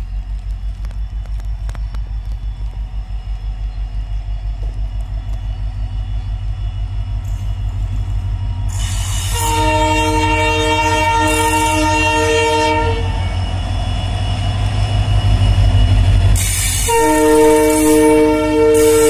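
Indian Railways WDG4 diesel locomotive, with its EMD 16-cylinder two-stroke engine, running with a steady low throb that grows louder as it approaches. It sounds its multi-tone air horn in two long blasts, one about halfway through and one near the end as it passes close by.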